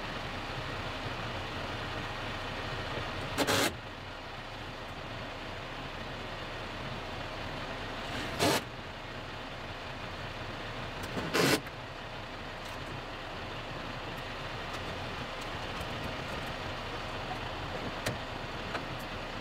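John Deere tractor's diesel engine idling steadily. Three brief loud bursts of noise break in a few seconds apart.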